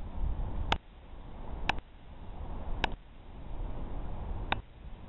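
Low outdoor rumble on a camcorder microphone, broken by four sharp clicks about a second apart. The background level jumps at each click: these are the pops of jump cuts between clips.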